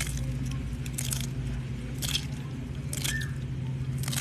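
Tortoise biting and chewing a spineless prickly-pear cactus pad: crisp, wet crunches about once a second, five in all, over a steady low hum.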